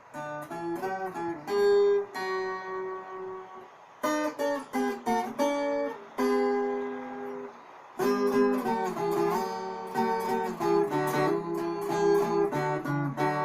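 Brazilian viola caipira playing an instrumental introduction: plucked phrases of ringing notes with short pauses between them.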